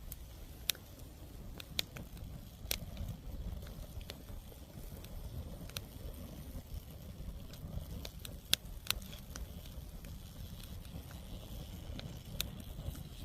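Wood fire burning in a fire pit, crackling with sharp pops at irregular intervals over a low steady rumble.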